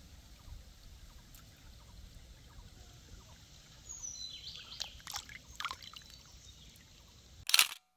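Shallow stream trickling over pebbles, with a hand splashing and stirring in the water from about halfway. A brief louder splash comes near the end, then the sound cuts off.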